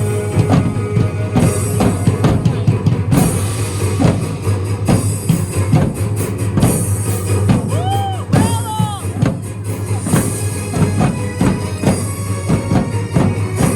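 Music with a steady, driving drum beat, with a few short gliding tones near the middle.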